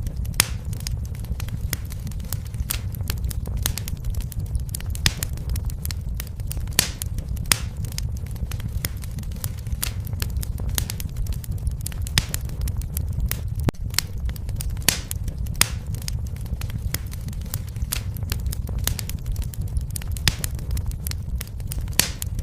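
Wood fire in a fireplace crackling, with sharp pops at irregular intervals, a few a second, over a steady low rumble of the flames.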